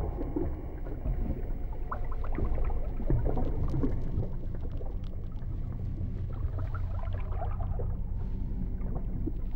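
A low, steady rumble with scattered short sounds over it: the dark sound bed laid under close-ups of an anaconda's coils squeezing its prey.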